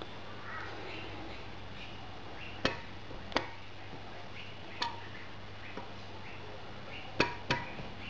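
Small folding pocketknife blade being driven down through the steel lid of a tin can, heard as sharp metallic clicks: five in all, spaced irregularly, the last two close together near the end.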